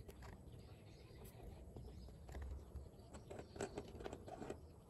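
Faint scattered clicks and taps from handling a small drone circuit board and a soldering iron on a wooden tabletop, busiest near the end.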